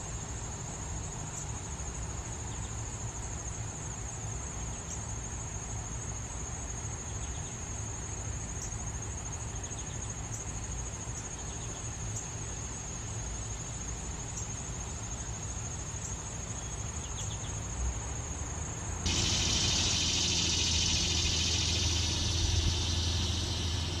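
A steady, thin, high-pitched insect song with a few faint chirps. About three-quarters of the way through it gives way abruptly to the louder, fuller buzzing of annual cicadas over a low rumble.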